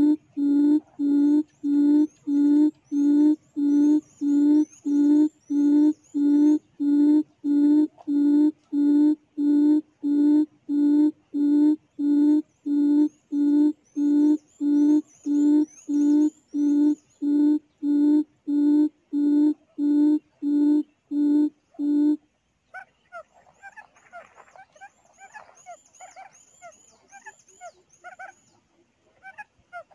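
Quail call played through a speaker as a trapping lure: a low hoot repeated about three times every two seconds, stopping abruptly about 22 seconds in. Small birds chirp faintly above it, and softer, irregular bird calls follow once the hooting stops.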